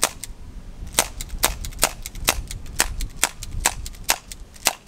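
CO2 gas-blowback airsoft Desert Eagle pistol cycling shot after shot, sharp snaps about two a second, as its CO2 cartridge runs out of gas.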